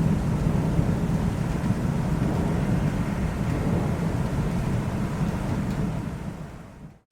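Low, steady rumble of a thunderstorm with rain noise, fading out about six seconds in to a moment of silence near the end.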